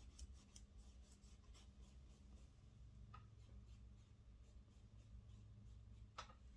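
Faint scratchy strokes of a paintbrush working paint on a canvas, quick and regular in the first couple of seconds, then a few scattered strokes, over a low steady hum.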